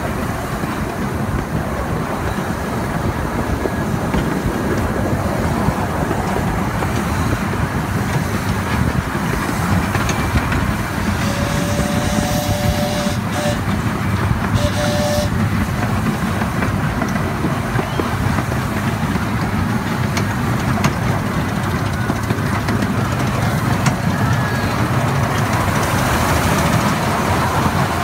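Ride-on miniature railway train running along its track, a steady rumble and clatter of wheels on rails. Short whistle toots sound twice around the middle.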